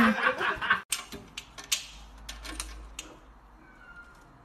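A second of a person's voice, cut off abruptly. Then light scattered clicks and taps as a cat paws at a key in the lock of its wire cage door.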